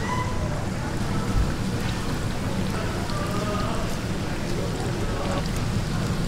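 Battered strips deep-frying in a wide pan of hot oil: a steady sizzle with scattered small crackles as fresh pieces are lowered in from the batter.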